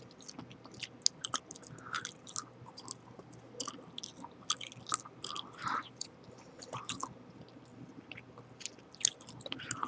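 Chewing gum close to the microphone: irregular smacks and clicks of the lips and mouth, a few every second.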